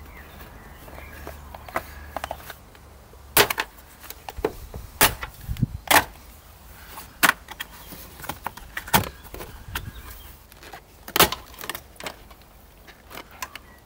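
Irregular sharp clicks and knocks, about one or two a second, with faint rustling between: a thin metal tool and cables being worked under a car's door-sill trim and carpet edge.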